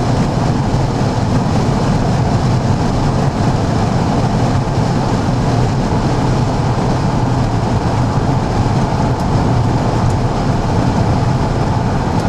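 Steady road and engine noise of a moving car, heard from inside its cabin: a low, even rumble throughout.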